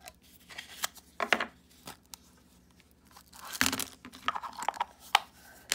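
Printed paper wrapper being peeled and torn off a small plastic toy capsule, with crinkling and light plastic clicks. The loudest tearing comes about three and a half seconds in.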